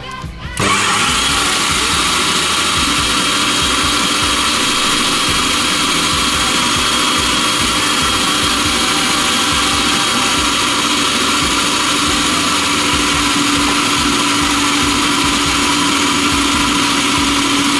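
Electric stand mixer with a wire whisk running at top speed, whipping cream and sugar into chantilly cream: a loud, steady motor whir that starts about half a second in, joined by a steady low hum a few seconds later.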